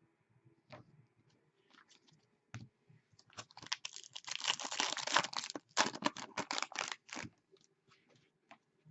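Hockey trading cards being handled, with scattered light clicks, then a run of rapid crisp rustling and clicking from about three to seven seconds in.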